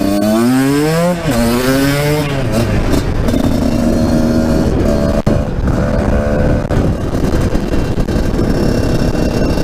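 Husqvarna SMS 125 motard's two-stroke engine, breathing through an HGS Shorty silencer, blipped up twice in quick succession and then held at a steady speed.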